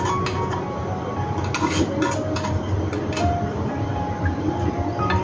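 A metal fork clinking and scraping against a ceramic bowl and a tin can as canned corned beef is scooped out onto mashed potato, with a cluster of sharp clinks between about one and a half and three seconds in, over steady background music.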